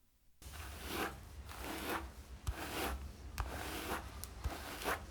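Hairbrush drawn through hair in a run of repeated brushing strokes, each a short rasping swish, with a few small clicks among them.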